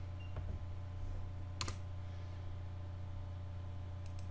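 A few separate computer clicks, the clearest about a second and a half in, over a steady low hum.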